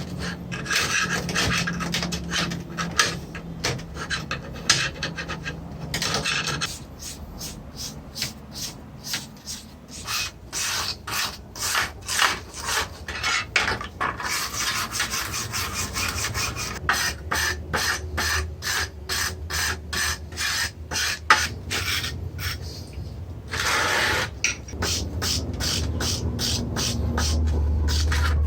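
Rhythmic hand scraping or rasping on rusty metal winch parts, as from a file or abrasive worked back and forth, about two to three strokes a second with a few short pauses.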